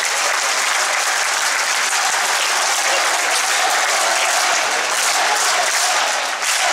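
Basketball crowd in an indoor arena applauding steadily.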